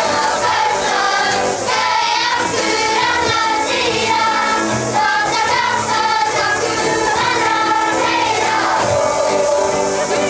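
A kapa haka group of school children singing a waiata together, with guitar accompaniment.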